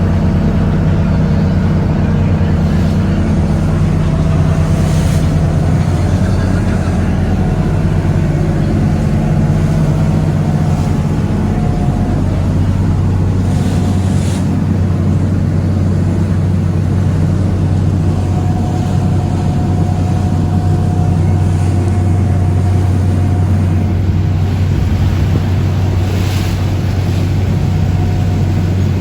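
Lobster boat's engine running steadily, a constant low hum heard on board.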